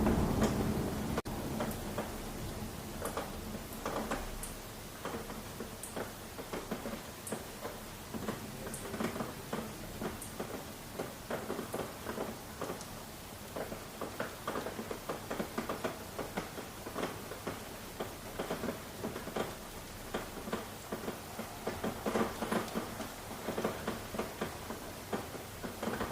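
Rain falling, with many separate drops pattering and dripping irregularly over a light steady hiss. A low rumble fades out about a second in.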